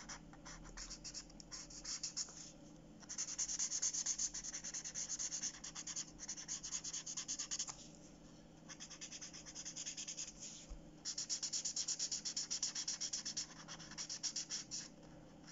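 Marker pen rubbing on paper in quick back-and-forth colouring strokes, in several runs with short pauses between.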